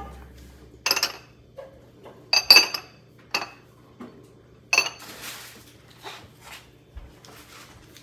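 Glass lids clinking against ribbed glass jars as they are lifted off and set back on: a string of sharp, ringing clinks, the loudest pair about two and a half seconds in, then fainter handling sounds.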